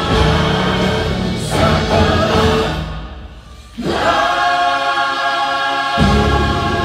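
Stage musical number with a choir singing over full music. About three seconds in the music thins and drops away briefly, then the voices come back on a long held chord, and the bass and drums rejoin near the end.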